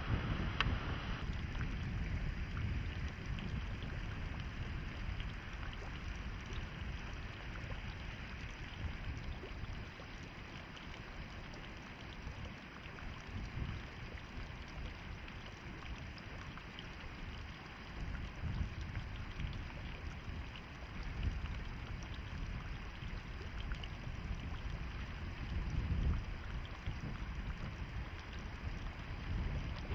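Wind buffeting the microphone outdoors: a gusting low rumble over a steady hiss.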